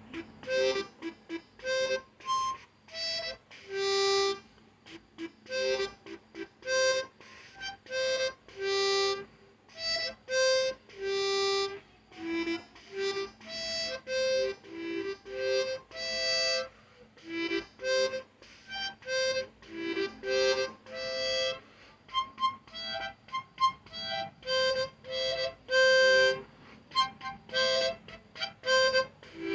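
Harmonica playing a long run of short separate notes and small chords, with brief gaps between them.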